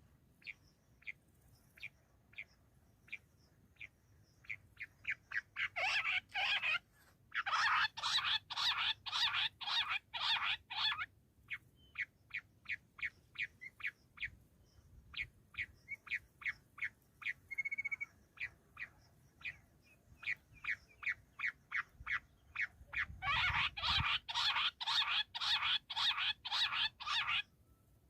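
Bush quail calling: a long series of short, sharp notes repeated several times a second, swelling into louder, faster runs about six to eleven seconds in and again near the end.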